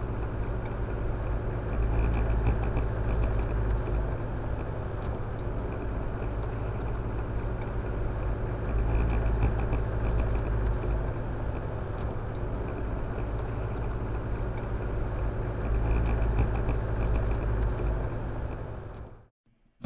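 Car driving along a bumpy grass field track, heard from inside the cab: a steady low rumble that swells three times with light rattling, then cuts off suddenly near the end.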